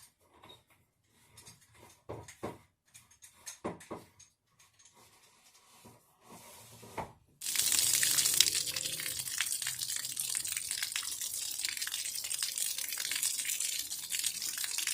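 A few scattered knocks and clicks of fittings being handled, then about seven seconds in, water starts running hard and steady with a loud hiss, cutting off abruptly near the end.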